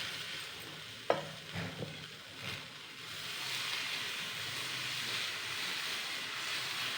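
Dosa batter sizzling on a hot pan, a steady hiss that settles in after about three seconds. A sharp clink about a second in and a few softer knocks come first.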